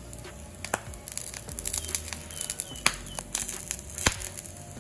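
Tarantula eggs frying in a hot pan, popping and crackling in scattered sharp clicks, while a spatula pushes them around the pan.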